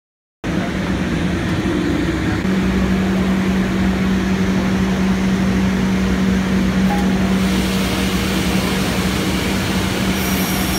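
Woodworking machinery running with a steady mechanical whir; a steady hum joins about two seconds in.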